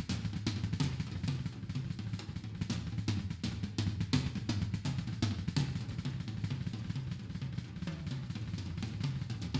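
Drum kit solo: a fast, unbroken run of strokes on snare, toms and bass drum.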